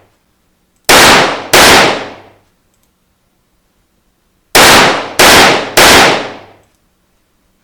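Gunshot sound effects played back: two sharp shots about 0.7 s apart about a second in, then three shots in quick succession about four and a half seconds in. Each shot has a ringing tail that dies away over most of a second.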